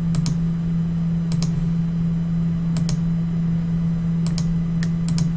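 Sharp clicks from working a computer, mostly in quick pairs about every second and a half, over a steady low electrical hum.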